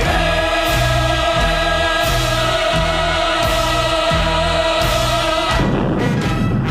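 Orchestral stage music with a chorus holding a long sustained chord over a bass that pulses about every 0.7 s; the held chord breaks off about five and a half seconds in as the music changes.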